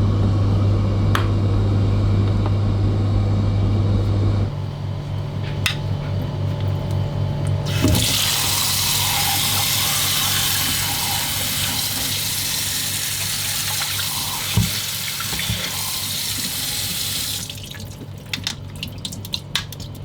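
A low steady machine hum for the first few seconds, then water running hard for about ten seconds, followed by a few light clicks and knocks near the end.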